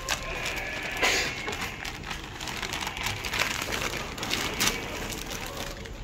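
Dry flour being poured from a bag onto a feed mix, with the bag rustling and crackling. A louder burst of rustling comes about a second in, and there are a few sharp clicks.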